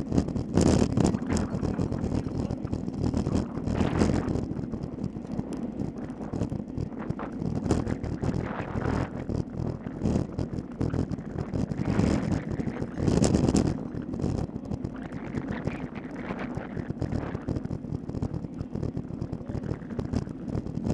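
Wind rushing over the microphone of a camera on a road bicycle ridden at speed. It swells louder in gusts a few times.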